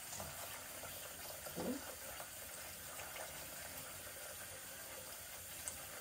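Bathroom tap running steadily into the sink. A short rising voice sound comes about a second and a half in.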